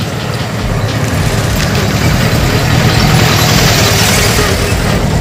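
A motor vehicle's engine running loudly close by, steady and a little louder toward the middle.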